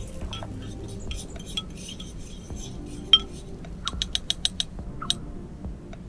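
Metal spoon clinking and scraping against a Vicenza cooking pot while stirring onion and garlic sautéing in oil. A sharp clink a little after three seconds, then a quick run of about six taps around four seconds and one more just after five.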